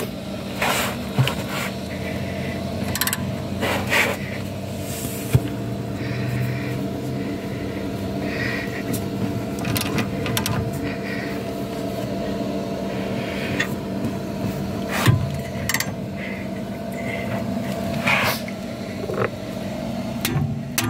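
A ring spanner clinking and knocking on a rusted, seized front brake caliper bolt: a scattering of sharp metal knocks over a steady low hum.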